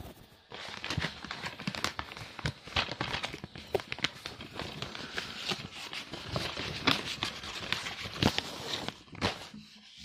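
Paper and cardboard packaging being handled and unwrapped, a dense run of crinkling and crackling with sharp clicks. It starts about half a second in and eases off near the end.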